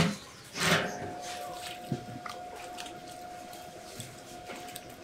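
A loud clatter under a second in, then wet squelching as a hand works soft, sticky spring roll wrapper dough in a metal basin, with a few small clicks and a steady faint tone underneath.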